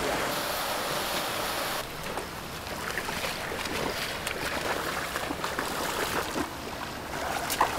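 Steady outdoor hiss for about the first two seconds, then pond water sloshing, with a few small splashes and knocks as a person wades knee-deep through a fish pond.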